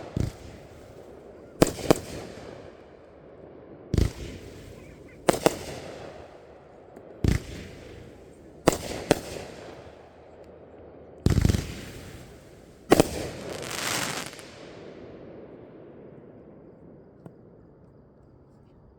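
Consumer fireworks firing one shot at a time, paced a second or two apart. Each shot is a sharp bang that trails off, and a few come in quick pairs. The last bang, about 13 seconds in, is followed by a longer crackling hiss before the shots stop.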